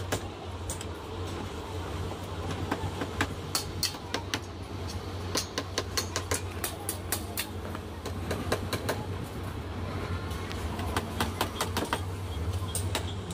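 Workshop noise: a steady low hum under many irregular sharp clicks and knocks.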